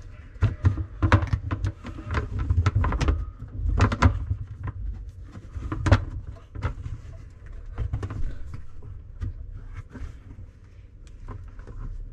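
Irregular clicks, knocks and rubbing of plastic dishwasher sump parts being pressed and twisted into place by hand in the bottom of a Kitchenaid dishwasher tub.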